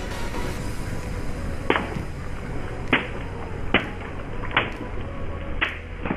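Water balloons bursting one after another under a slowly rolling car tyre: a series of sharp pops with splashes, about one a second.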